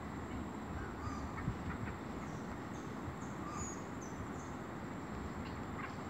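Wild birds calling: a run of short, high chirps, with a few lower notes, over a steady low rumble and a constant thin high whine.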